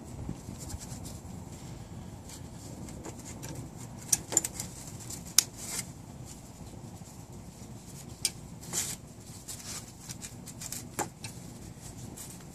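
Locking pliers and small steel brake hardware clicking and scraping against a new drum brake shoe as the adjusting bracket is fitted. There are scattered sharp clicks, the loudest about five seconds in, with more around eight seconds and near eleven seconds.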